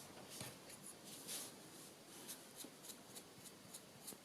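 Faint, soft strokes of a brush spreading PVA glue across an MDF craft tag, several light scratchy swipes.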